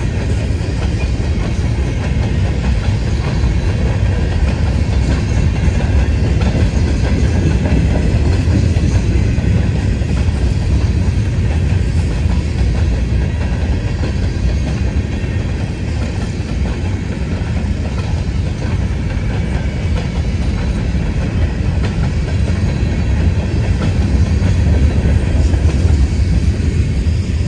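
Freight train of covered hopper cars rolling past: a steady rumble and clatter of steel wheels on the rails. The last car goes by near the end and the sound starts to fall away.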